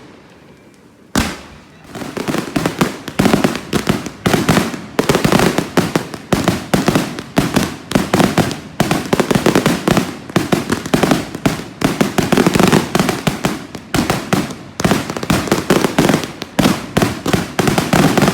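Fireworks going off: one bang about a second in, then a rapid, continuous barrage of many bangs in quick succession, with a brief lull near the end.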